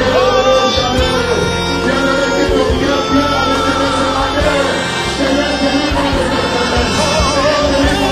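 Gospel worship music with singing over a band, a steady beat and sustained vocal lines.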